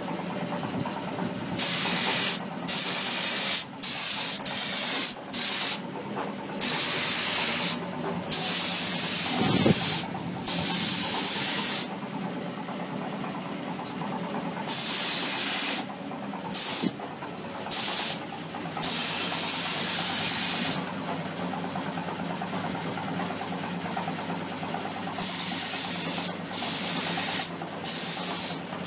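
Compressed-air paint spray gun hissing in repeated trigger bursts, some brief and some a couple of seconds long, with short pauses between, over a steady low machine hum.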